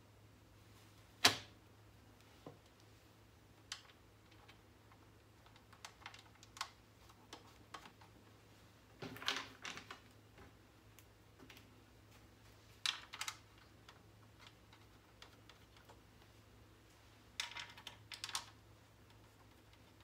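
Scattered clicks and light knocks from hands handling a PC tower case: a sharp click about a second in, then short clusters of rattling taps in the middle and near the end, over a faint steady hum.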